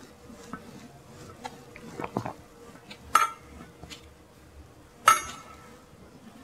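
Metal Communion vessels clinking on the altar as a priest purifies them after Communion: a few soft knocks, then two sharp ringing clinks about three and five seconds in. A faint steady hum runs underneath.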